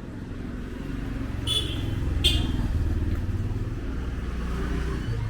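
A motor vehicle's engine running close by, swelling and then easing as it passes. Two short high-pitched beeps sound over it, one about a second and a half in and another under a second later.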